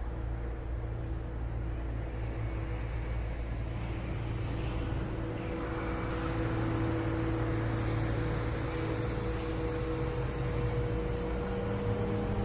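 Heavy-haulage truck hauling an oversize load approaches slowly, its diesel engine a steady low hum that grows gradually louder.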